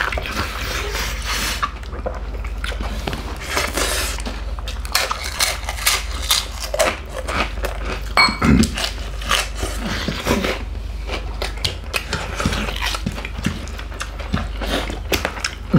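Close-miked eating: fingers mixing rice on plates, chewing and lip-smacking, a dense run of small wet clicks and squelches, over a steady low hum.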